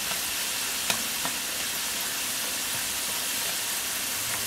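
Potato sticks deep-frying in hot oil in a nonstick pan: a steady sizzle of bubbling oil, about six minutes into the first fry at medium heat. Two light clicks sound about a second in.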